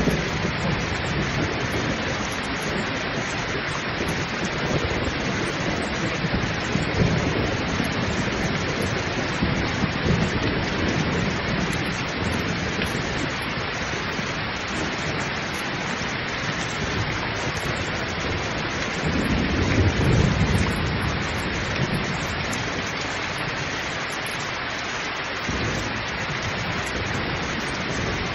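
Heavy, steady rain pouring down, with low rolling rumbles of thunder; the loudest rumble swells up about two-thirds of the way through.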